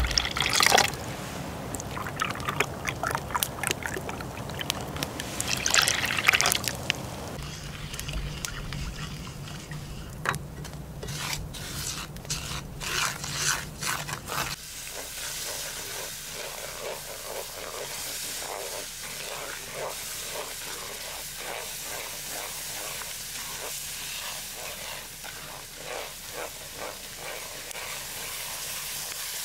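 Liquid poured into a metal pan over a campfire, in splashing bursts through the first several seconds. Then a wooden spatula stirs and scrapes grain in a frying pan over the fire, with many small clicks and ticks, and near the end liquid is poured into the hot pan.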